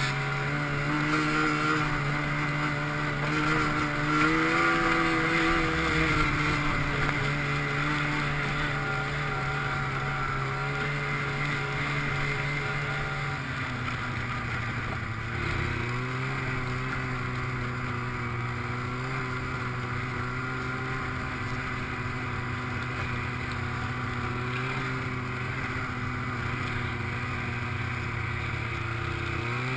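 Snowmobile engine running under way. Its pitch rises and wavers with the throttle in the first half, drops about 13 seconds in, then holds steady.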